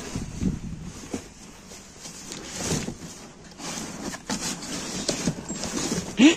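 Cardboard boxes and packing paper rustling and scraping as a hand rummages through them: irregular crinkles and scuffs, with one short, louder scrape near the end.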